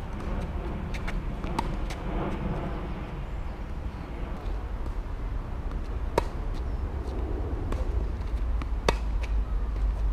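Tennis rally: a racket strikes a tennis ball sharply twice, a little under three seconds apart, with fainter hits and bounces from the far end of the court. A steady low rumble lies under it all.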